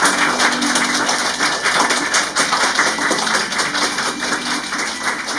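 Rapid, irregular tapping or clicking, with low steady tones that come and go.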